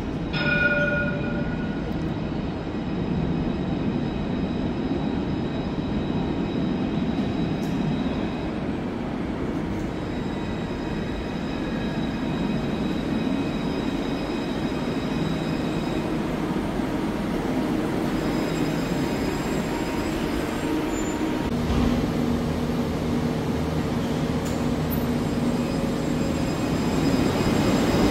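A light-rail tram running through an underground station, with a steady low rumble of wheels on rail and a faint motor whine. A short pitched tone sounds about half a second in, and the tram gets louder near the end as it passes close by.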